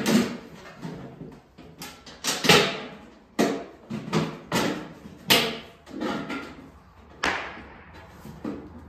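Galvanized steel stovepipe's lengthwise snap-lock seam being pressed shut by hand, the sheet metal snapping and clanking about ten times at irregular intervals, each sharp click ringing briefly.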